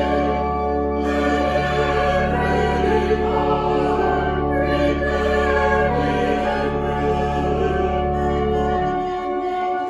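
Slow church choral music: a choir singing long-held chords over a held low bass, which drops out briefly near the end.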